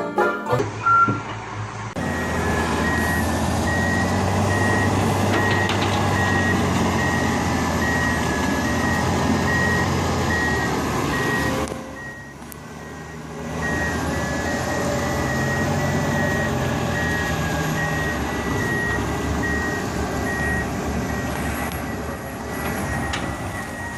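Reversing alarm on a heavy machine beeping steadily, about twice a second, over the rumble of its running engine; both drop out for about a second and a half near the middle.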